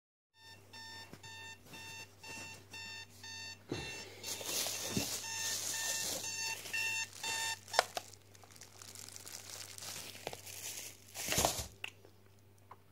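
Alarm beeping in a steady repeating pattern, about two beeps a second, which stops about seven and a half seconds in with a sharp click. Rustling and handling noises follow, with a louder rustle near the end.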